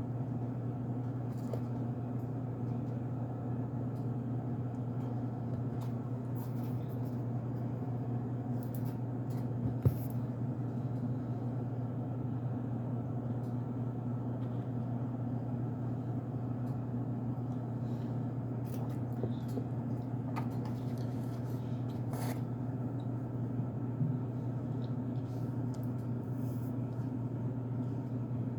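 Faint crunching and crackling clicks in scattered clusters, with one sharper click about ten seconds in, from chewing plain unscented cornstarch. A steady low hum runs underneath.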